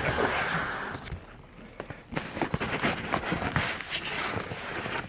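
Cardboard box and bubble-wrap packing being handled: a rush of rustling, a short lull about a second in, then a run of small crackles and knocks.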